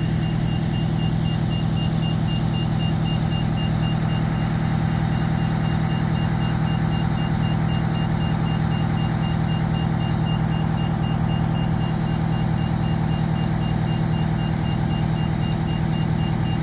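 Fire engine's diesel engine idling steadily, with a high electronic beep repeating several times a second over it that breaks off briefly about four and a half seconds in.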